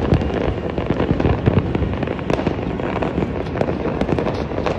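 Many fireworks and firecrackers going off across a city at once: a dense, continuous crackle of overlapping pops and bangs with no pause.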